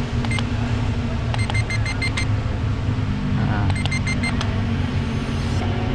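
Short high electronic beeps in quick runs, about a second and a half in and again about four seconds in, from the LS Min mini drone's handheld remote as flip mode is set, over a steady low rumble.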